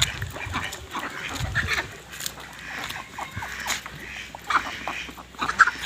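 Ducks quacking in short, scattered calls, with the loudest ones a little before the end.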